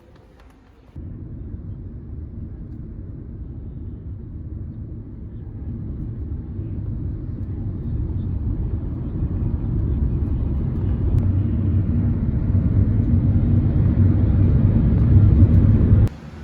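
Low rumble of a moving vehicle that starts suddenly about a second in, grows steadily louder and cuts off abruptly near the end.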